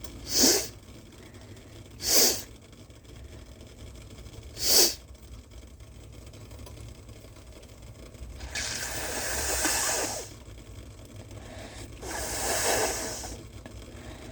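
A person sniffing sharply through the nose three times, her sinuses opened up by steam, then blowing her nose twice into a cloth bandana used as a hankie; each blow lasts about a second and a half.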